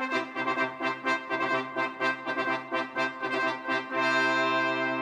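Brass music: quick repeated notes, then a long held chord from about four seconds in.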